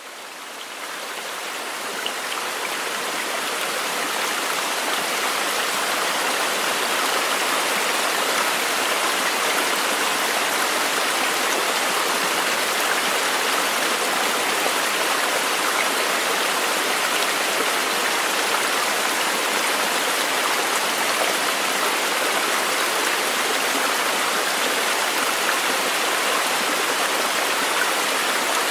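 Steady rushing water, like a stream or light rain, fading in over the first few seconds and then holding even.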